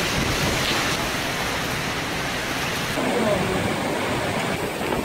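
Cyclone storm noise: a loud, steady rush of wind and driving rain.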